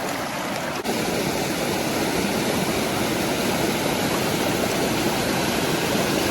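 Steady rushing of water pouring over a small creek waterfall. After a brief dropout about a second in, the rush comes back louder and holds steady.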